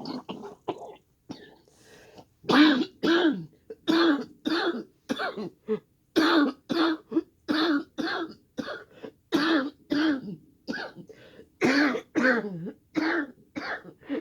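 A person coughing hard and repeatedly, short voiced hacking coughs about two a second with a brief lull near the start. This is choking on firework smoke.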